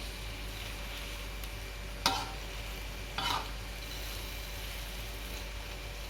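Squid and green chilies sizzling steadily in a hot wok as they are stir-fried, with two short clatters of the utensil against the pan about two and three seconds in.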